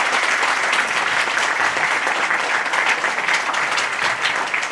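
Audience applauding, a steady, dense clapping at the end of a presentation.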